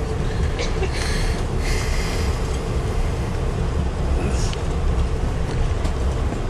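Passenger train rolling with a steady low rumble. About a second in there is a brief high hiss-screech, and a shorter one just after four seconds, typical of wheels or brakes as the train comes into a station.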